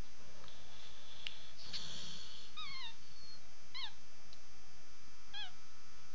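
A pet snoring in its sleep: three short, squeaky whistling notes, one on each breath, about a second or so apart.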